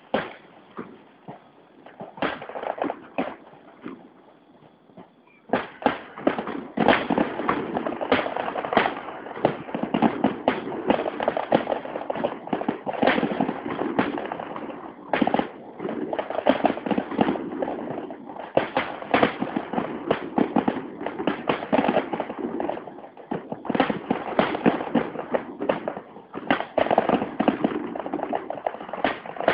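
Fireworks going off. A few separate bangs come first, then from about five seconds in a dense, continuous barrage of bangs and crackling.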